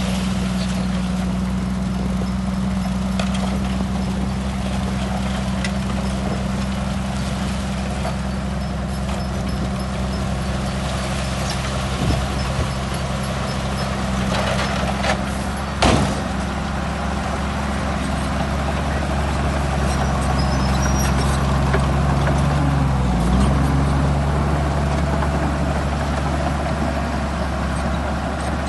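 Diesel engine of heavy earthmoving machinery running steadily, with two sharp knocks midway and a brief dip in engine pitch later on.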